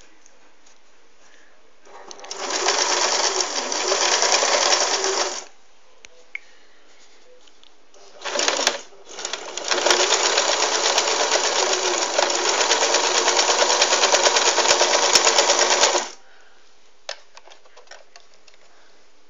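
Singer 533 sewing machine running and stitching a zigzag through fabric. It sews in three stretches: about three seconds, then a brief burst, then a longer run of about six seconds, stopping a few seconds before the end.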